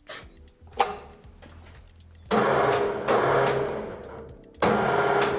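A short hiss from an aerosol spray can at the very start, then a click a little under a second in. From just over two seconds in, loud background music starts suddenly, fades, and comes back in near the end.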